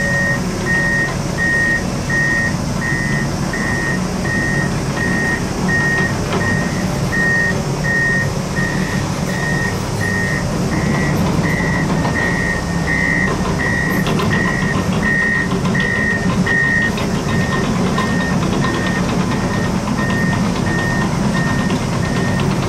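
Heavy construction machine reversing: its diesel engine runs steadily under a back-up alarm beeping evenly at one high pitch, about three beeps every two seconds.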